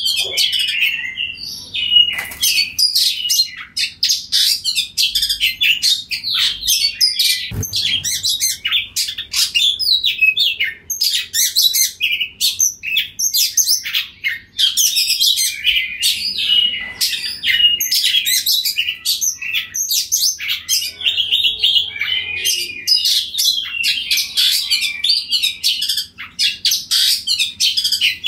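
Oriental magpie-robin singing in full voice: a long, fast, varied run of high chirps and whistles with hardly a pause, broken by a single sharp click about eight seconds in.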